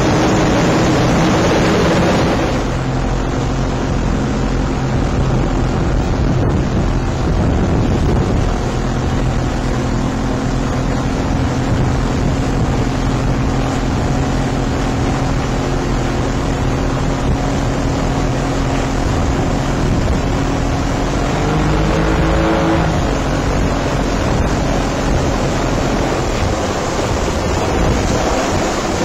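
RNLI inshore lifeboat's outboard engine running steadily at speed, with wind buffeting the microphone and water rushing past the hull. The engine note shifts up briefly about three-quarters of the way through.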